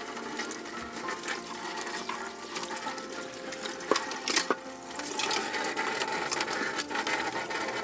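Water running and splashing while a computer power supply is washed, with scattered small clicks and a few louder knocks about four seconds in.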